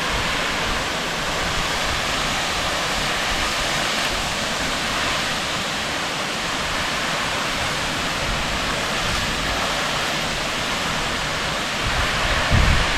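Bridal Veil Falls waterfall: steady rushing, splashing water. Near the end, wind starts to buffet the microphone with a low rumble.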